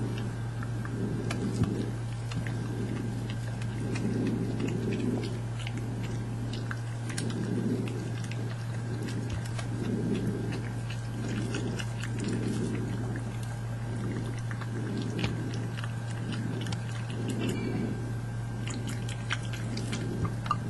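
Badgers munching nuts: soft rhythmic chewing about once a second, with many sharp crunches and cracks of shells scattered through. A steady low hum runs underneath.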